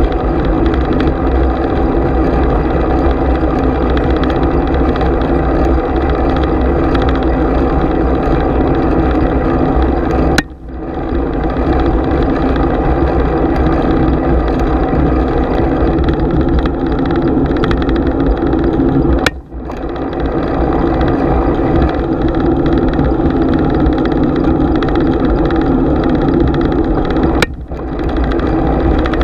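Steady rush of bicycle riding noise, wind and tyres on the road, picked up by a GoPro's microphone. Three times a click is followed by a sudden brief drop in the noise that recovers within about a second.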